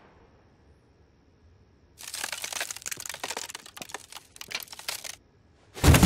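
Screen sound effect of a body cracking apart: a dense run of crisp cracks and crackles lasting about three seconds, starting after a near-silent pause with a faint high tone. It stops suddenly and is followed by a loud, low burst as the body collapses into dust.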